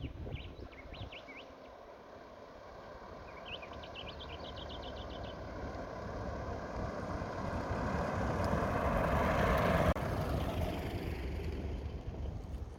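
A four-wheel-drive ute driving along a concrete causeway toward the listener: its engine and tyre noise build steadily, peak as it passes close about ten seconds in, then fade. Birds chirp in quick runs during the first five seconds.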